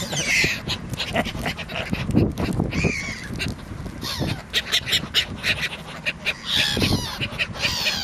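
Seagull giving repeated harsh squawking calls, several sliding down in pitch, about a second and a half apart at the start, again about three seconds in, and in a cluster near the end.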